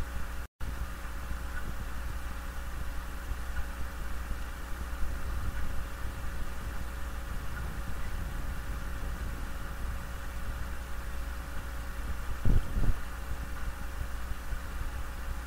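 Steady low rumble and hiss of background noise with a faint constant hum, left running while the room is quiet. The sound drops out completely for an instant about half a second in, and two short dull thumps come about twelve and a half seconds in.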